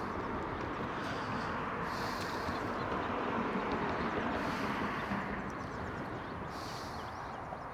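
Steady rumble and hiss of traffic on a nearby road, with no single vehicle standing out.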